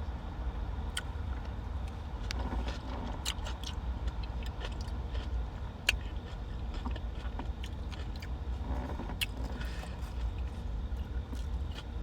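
Steady low rumble, like a vehicle's engine or cabin noise, with scattered small clicks and one sharp click about six seconds in.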